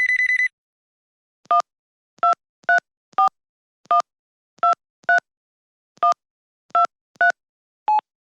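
Touch-tone phone keypad dialing a number: eleven short two-tone beeps in an uneven rhythm. They follow the brief end of an electronic warbling ring in the first half second.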